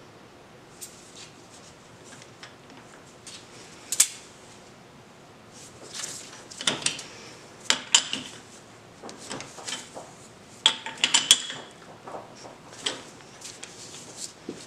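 Metal clicks and clanks of a lathe chuck key working the chuck jaws to clamp a bar of aluminum stock. The strikes come scattered and irregular, the loudest about four seconds in, with a cluster of sharp clinks around eleven seconds.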